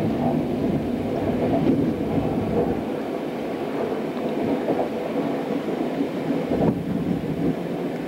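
Passenger train running along the rails, heard from inside the carriage: a steady rumble of wheels and track, with one brief thump near the end.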